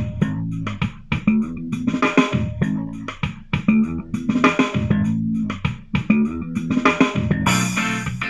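A pop song with guitar, bass and drums played back through an Awei Y371 portable Bluetooth speaker and picked up by a microphone, with strong repeating bass notes.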